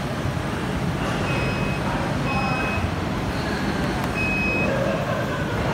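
Aftermarket electric tailgate lift on a Toyota Prius Plus sounding its warning beeper: three short high beeps, each about half a second, over a steady low hum.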